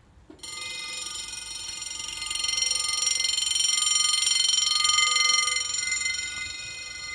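Level-crossing warning bell ringing continuously, starting about half a second in as the crossing activates for an approaching train. It grows louder in the middle and eases off near the end.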